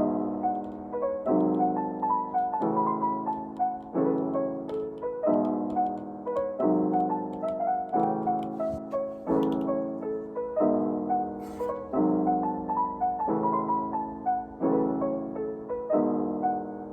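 Background piano music: a calm, steady run of chords changing about every second and a half, with a simple melody above.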